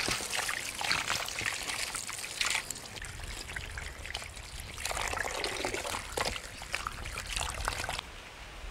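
Tap water trickling into an enamel basin while hands rub and rinse raw pork in it, with many small clicks and splashes. The water sound cuts off abruptly shortly before the end, leaving a quieter outdoor background.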